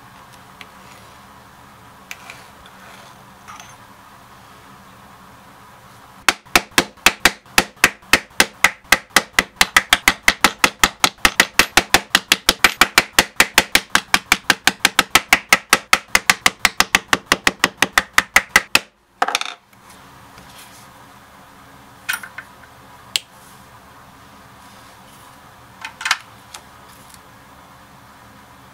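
Mallet striking a stitching chisel through leather on a cutting board: a steady run of sharp knocks, about four a second for some twelve seconds, that stops abruptly. A few lighter, isolated knocks follow later.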